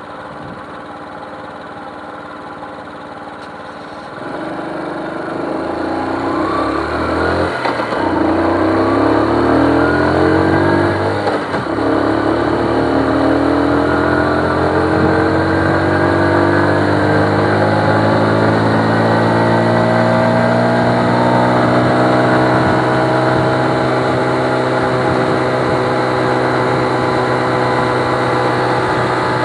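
Motorcycle engine idling at a stop, then pulling away about four seconds in, its pitch rising through the gears with two shifts in quick succession before settling into steady cruising.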